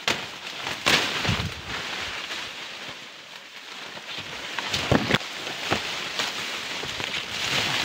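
Leaves and fern fronds rustling and brushing against the camera as it is pushed through dense undergrowth, with a few sharp clicks about a second in and around five seconds.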